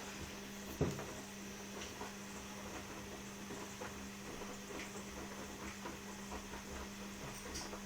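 Washing machine running with a steady motor hum and scattered light clicks and knocks, one sharper knock about a second in. The hum stops near the end.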